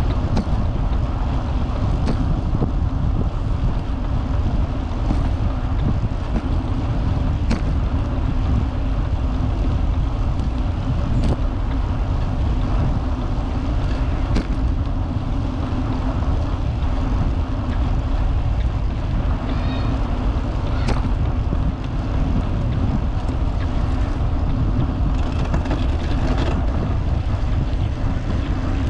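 Wind buffeting the microphone on a moving vintage road bicycle, over the steady rolling noise of its tyres on the trail. A few sharp clicks from the bike come through at irregular moments.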